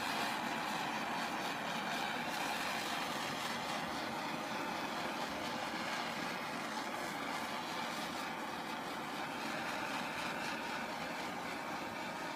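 Handheld Bernzomatic propane torch burning with a steady hiss as its flame scorches the carved wood.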